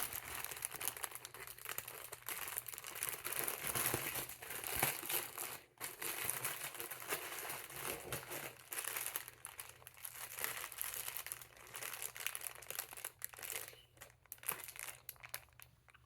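Minifigure packaging being opened by hand: continuous irregular crinkling and crumpling with some tearing, thinning out near the end.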